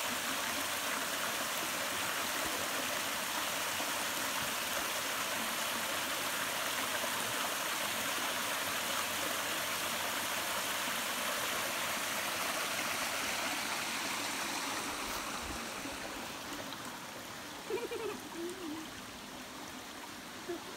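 Small creek cascade, water splashing steadily down stepped rock ledges. It grows quieter in the last few seconds.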